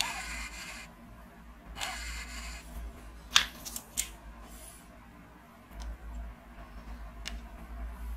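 Plastic LEGO pieces and the LEGO Super Mario figure being handled: a few sharp single clicks, the loudest a little past three seconds in and another about seven seconds in. Two short hissing bursts come first.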